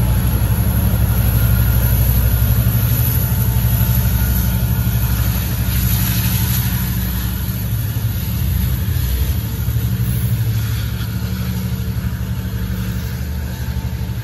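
Diesel locomotive (Caltrans F59PHI) running steadily with a low engine drone as it moves its train away down the track, growing a little fainter near the end.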